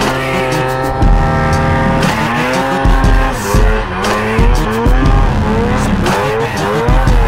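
Two-stroke snowmobile engine revving up and down, its pitch rising and falling repeatedly, with background music under it.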